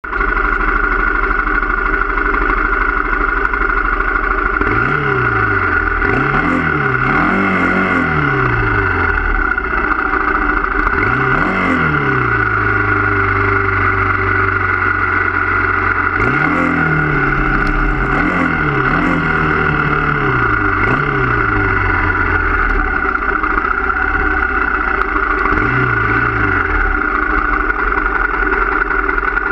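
Motorcycle engine heard from the handlebars while riding a gravel road: a steady running drone whose pitch rises and falls again in several bursts as the throttle is opened and closed.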